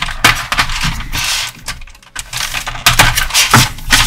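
Plastic packaging being handled to get small plastic accessory parts out: rapid, irregular crinkles and clicks, with a brief pause about two seconds in.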